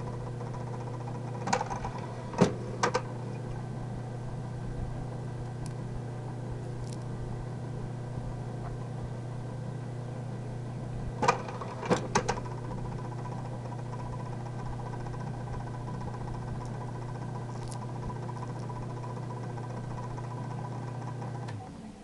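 Electric ARPI scrap copper wire stripping machine running with a steady motor hum. Two clusters of sharp clicks come, one about 2 seconds in and another around 11 to 12 seconds, as wire is fed into the cutter. The motor switches off near the end.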